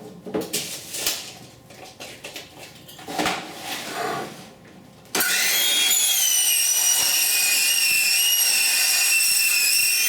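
Vinyl siding being handled and positioned for a few seconds, with light clatter and scraping. About five seconds in, a power saw starts abruptly and runs loud and steady through the cut, its whine dropping slightly in pitch under load, before it stops just before the end.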